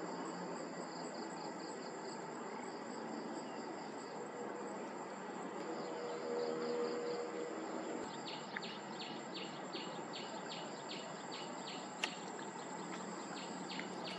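Steady trilling of insects in a wetland. A low hum swells briefly in the middle, and from about halfway through a rhythmic chirping of about three pulses a second joins in.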